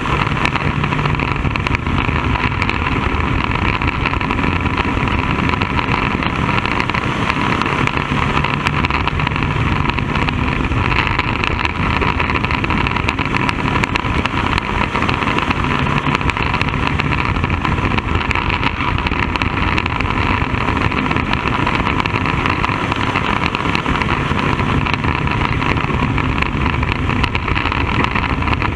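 Bandolero race car's single-cylinder Briggs & Stratton engine running hard on track, heard from the cockpit. Its note swells and eases about every eight seconds, lap after lap, with wind rushing over the car.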